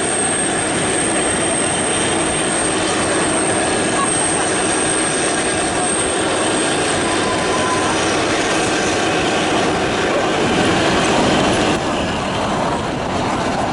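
Narrow-gauge train running on the Kalka–Shimla line: a steady rumble and rattle of wheels on rail, with a thin high wheel squeal that fades out around the middle.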